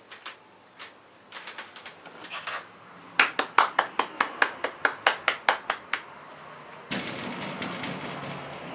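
A quick, regular run of sharp clicks or taps, about five a second, after a few scattered ones, then a steady hiss that starts about seven seconds in and slowly fades.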